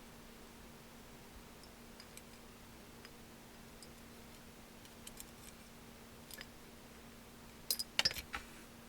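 KTC BR390 3/8-inch drive, 90-tooth ratchet being handled: scattered faint metallic clicks, then a quick cluster of louder sharp clicks near the end.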